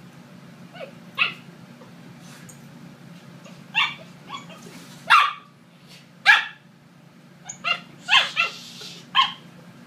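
Pembroke Welsh Corgi puppy, twelve weeks old, giving about ten short barks and yips in irregular spurts while play-attacking, the loudest two about five and six seconds in.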